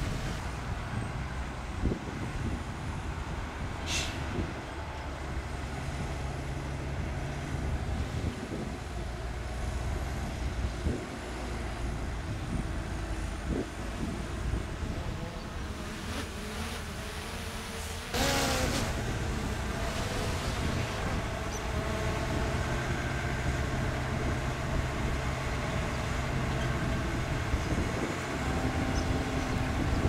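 Heavy dump truck's diesel engine running, with a short sharp hiss about four seconds in. About halfway through the engine gets louder and stays steady, as the loaded bed is raised to tip the dirt.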